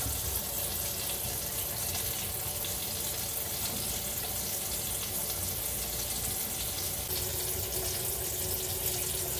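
Kitchen faucet running steadily, water pouring into the sink and down through the basket-strainer drain, heard from the cabinet under the sink.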